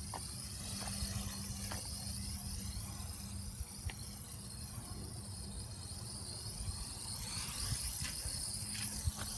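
Traxxas Alias mini quadcopter's motors and propellers whining, the pitch rising and falling as it manoeuvres.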